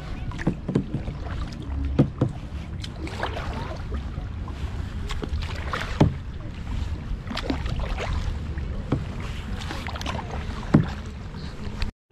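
Kayak being paddled: water splashing and dripping from the paddle, over a steady low rumble, with three sharp knocks about four seconds apart.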